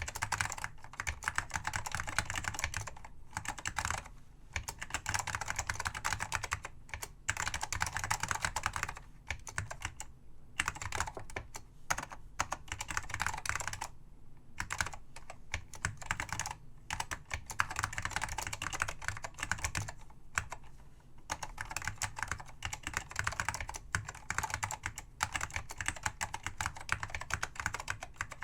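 Typing on an Apple M0116 mechanical keyboard with Alps SKCM Salmon switches: fast, steady runs of key clicks broken by several brief pauses.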